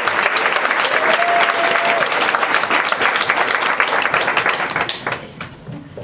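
Audience of parents applauding, the clapping thinning out and dying away about five seconds in.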